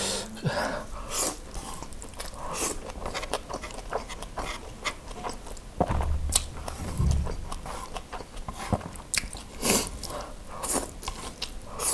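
Close-miked mouth sounds of a person eating noodles: slurping mouthfuls of noodles and chewing, with many irregular short smacks and clicks.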